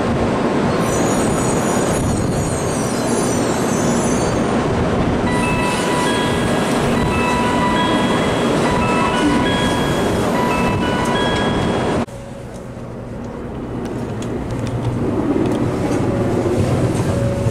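Running noise of an N700A Shinkansen train at speed, heard inside a passenger car: a loud, steady rushing rumble of wheels and air that drops sharply about twelve seconds in and then builds back up.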